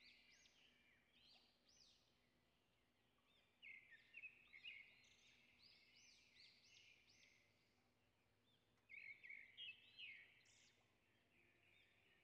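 Faint twittering of small songbirds: quick rising-and-falling chirps in dense runs, a little louder about four seconds in and again around nine to ten seconds.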